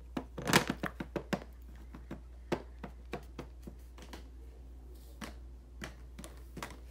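Irregular light taps and clicks of small toys being handled and set down on a hard surface, bunched together in the first second and a half, then scattered and fainter.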